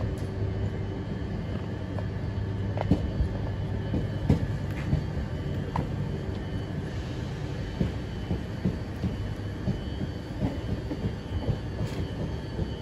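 Double-deck electric regional train rolling slowly along the platform, with a steady low rumble and irregular clicks and knocks from its wheels passing over the rail joints.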